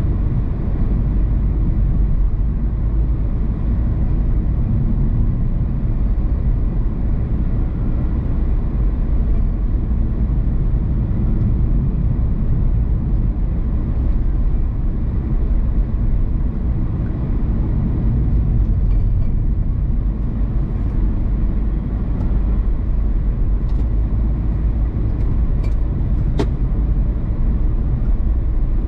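A car driving steadily on the road: an even, low rumble of engine and tyres that stays level throughout, with a few faint clicks near the end.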